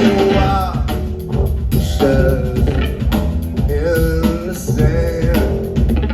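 Live band music: a drum kit beat over a steady bass line, with a melodic line that bends in pitch over the top.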